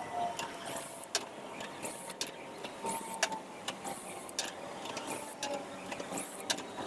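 Cordless drill spinning a wire wheel against ring gear bolts clamped in a vise, scrubbing off old blue Loctite. It runs in short spurts, each with a brief high whine, over a steady scratchy hiss and scattered clicks.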